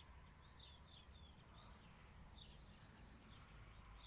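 Faint birdsong: a run of short, high chirps from small birds at an irregular pace, over a low steady rumble.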